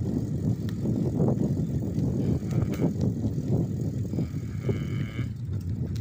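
Wind buffeting the microphone and tyre rumble while riding a bicycle along a paved path, a rough, uneven low roar. About four seconds in, a faint high tone sounds briefly for about a second.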